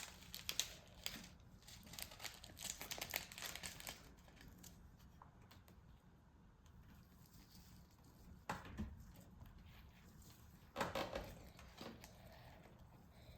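Plastic packaging crinkling and rustling as small packets of slime add-ins are handled, busiest in the first few seconds, with two short louder rustles later on.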